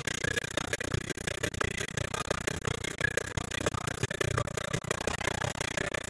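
Irregular crackling over a hiss, from a badly damaged videotape soundtrack.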